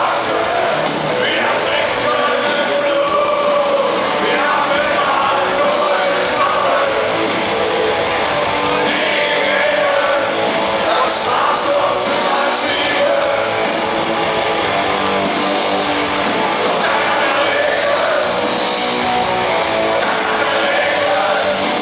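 Rock band playing live, with distorted electric guitars, drums and a male lead vocal, heard from inside the crowd in a concert hall.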